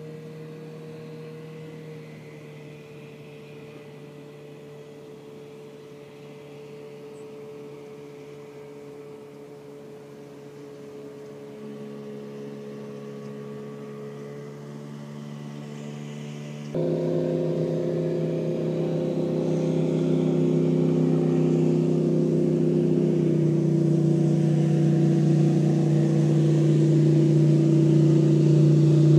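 Motorboat engine running steadily as the boat comes along the river, growing gradually louder, with a sudden step up in loudness a little past the middle.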